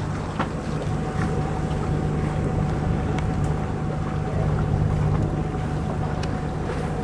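Sailing yacht motoring under its engine: a steady low engine drone with a faint steady whine above it, mixed with wind on the microphone and a few small knocks.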